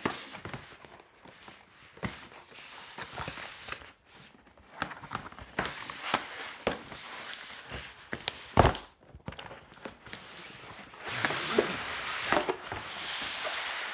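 Cardboard packaging being handled on a tabletop: a large box flipped over and its cardboard inner tray slid out of the sleeve, with rubbing and scraping of cardboard and several knocks. One louder thump comes a little past halfway, and a longer sliding scrape comes near the end.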